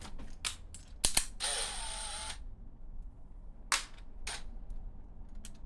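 Sharp clicks and knocks of small metal parts and hand tools being handled, loudest as a double click about a second in. About a second and a half in there is a brief whir lasting about a second.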